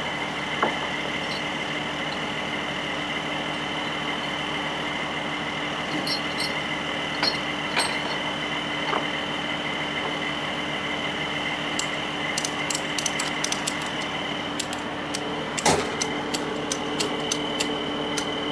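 Idling truck engine, a steady hum with a constant high whine. In the last third a ratchet strap is worked: a run of quick clicks, about five a second, with one louder knock near the end.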